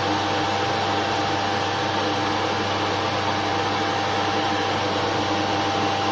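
VFD-driven 2.2 kW (3 hp) AC motor spindle running steadily at speed: a constant electric whine over an even rushing hum, with no change in pitch.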